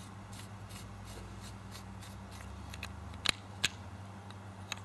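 A washer being fed onto the thread of a large plastic screw-in ground peg: a run of light clicks and scrapes as it is worked along the thread, then two sharper clicks a little over three seconds in.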